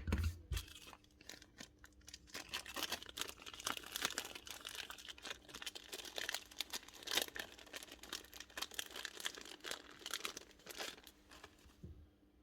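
Hands working close to the microphone on a Basso 23-gauge pinner's trigger valve while swapping its O-rings: a thump at the start, then a dense run of small scratches and clicks that dies down near the end.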